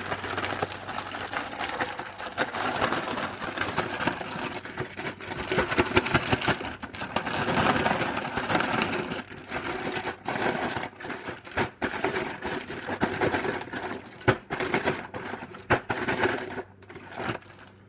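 Chocolate-coated cereal pieces rattling and crunching inside a large plastic zip-top bag as it is shaken hard to coat them in powdered sugar. The shaking stops near the end.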